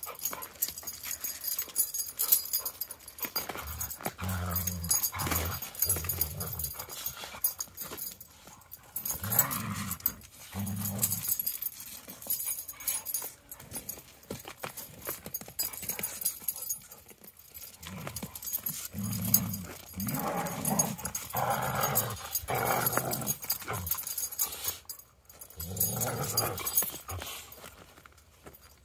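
Two dogs play-fighting, with low play growls in bursts of a second or two, several times over.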